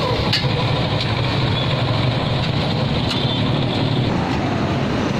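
Motorcycle engine of a passenger tricycle running steadily under way, heard from inside its sidecar cab, with road noise. Two faint light clicks, about half a second in and about three seconds in.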